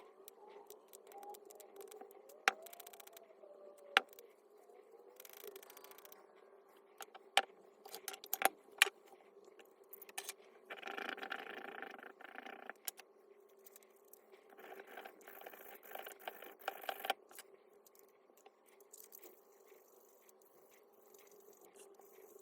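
Hand work on parts of a disassembled electric demolition hammer: scattered sharp clicks and knocks of hard parts, with two stretches of scraping, each a second or two long, about halfway through and a few seconds later.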